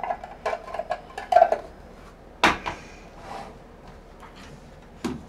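Hard plastic clicks and clacks of a magnetic one-touch card holder being handled and closed: a quick run of light clicks in the first second and a half, then one sharp snap about two and a half seconds in.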